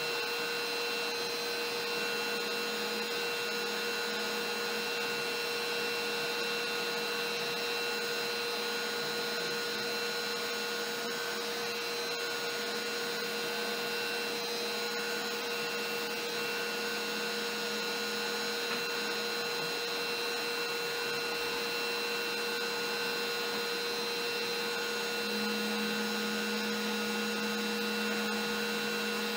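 LowRider CNC v3 cutting MDF with a trim router running a single-flute upcut bit at its lowest dial speed: a steady whine over a hiss of cutting noise. A lower hum drops in and out, and is strongest near the end.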